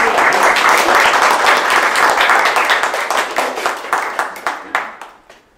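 Audience applauding: loud and dense at once, then thinning and dying away near the end.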